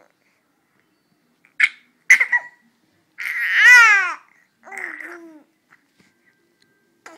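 Baby vocalizing: two short squeaks, then a long, loud squeal about three seconds in whose pitch falls, and a softer call after it.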